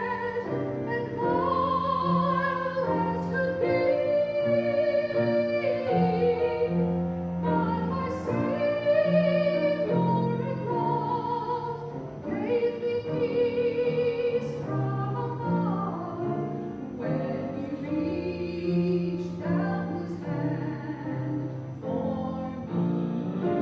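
Slow sacred music in a classical style: a held, vibrato melody line, most likely a trained solo voice, over a keyboard accompaniment.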